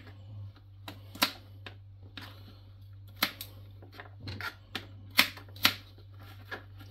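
Knife chopping raw pumpkin into cubes on a plastic cutting board: irregular sharp knocks of the blade against the board, the strongest about a second in and twice a little after five seconds.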